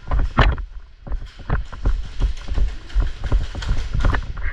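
Thudding footsteps of someone running, about three a second, over a low rumble.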